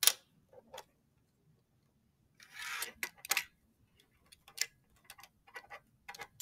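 Pieces of a magnetic molecular model kit clicking together as they are handled and fitted. A sharp click at the start, a short rubbing rustle about two and a half seconds in, then a string of lighter clicks.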